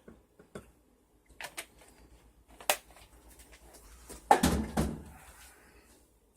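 Light clicks and knocks of objects being handled, with a sharp click near three seconds and a louder thump and short rattle a little past four seconds.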